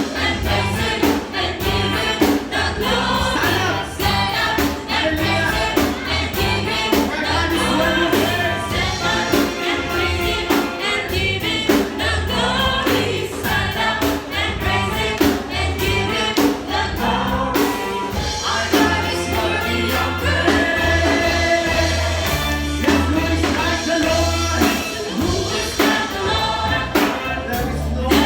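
Live gospel worship music: a group of singers over a band, with a steady drum beat and bass notes underneath.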